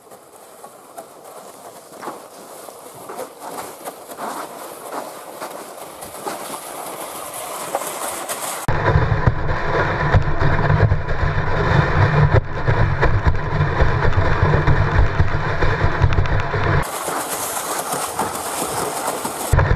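Plastic sled sliding over packed snow: a steady, rough scraping rumble heard through a camera mounted on the sled, growing much heavier and deeper about nine seconds in. Near the end it briefly turns to a thinner hiss without the low rumble, then the rumble returns.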